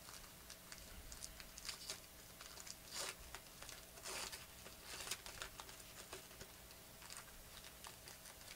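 Faint crinkling and tearing of a shiny foil trading-card pack being opened by hand, with a few louder crinkles around the middle.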